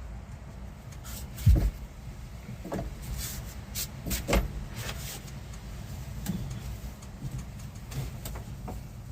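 Metal tools being handled and rummaged, with a loud clank about one and a half seconds in and several lighter knocks and rattles after it, over a steady low hum.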